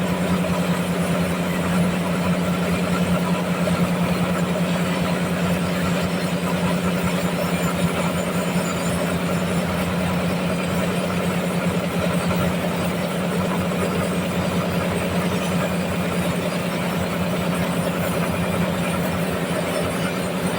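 Sawmill machinery running steadily: a continuous engine-like hum with an even mechanical noise over it and no break or change.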